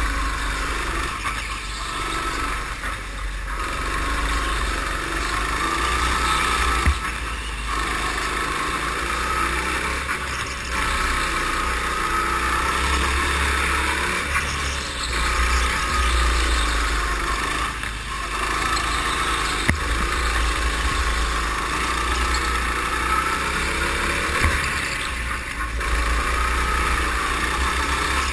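Go-kart engine running continuously on a lap of an indoor track, heard from on board the kart with a heavy low rumble. The level eases off and picks up again every few seconds through the corners, with a few sharp knocks.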